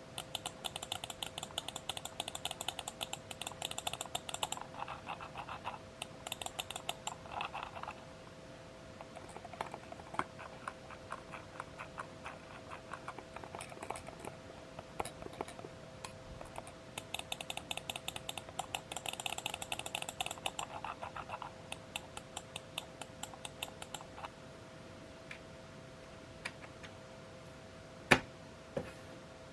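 Computer mouse buttons clicked rapidly in bursts of quick, light clicks with short pauses between, and one sharper knock near the end. A faint steady hum runs underneath.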